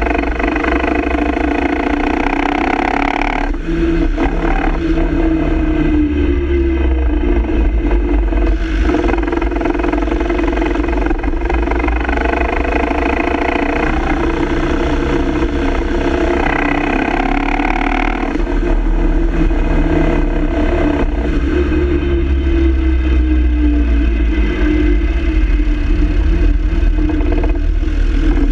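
Land Rover Defender TD5's five-cylinder turbodiesel and drivetrain running while driving, with a heavy low rumble. The engine's pitch shifts twice as the speed changes, about four seconds in and again past the middle.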